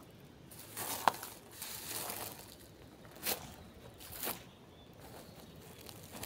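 Footsteps with rustling: a few crunchy steps about a second apart, mixed with scraping and brushing noises.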